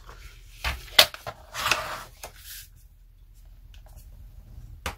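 Sheet of cardstock being folded along its scored line and handled on a work surface: a couple of sharp taps about a second in, a short papery rustle, then faint handling with another tap near the end.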